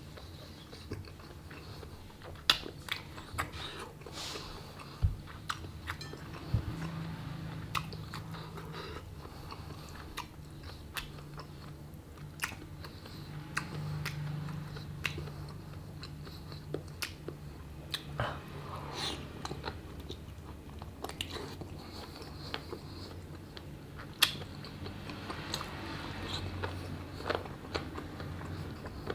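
Close-up eating of chicken feet in Thai sauce: chewing and biting, with sharp crunchy clicks scattered throughout. The loudest crack comes a couple of seconds in.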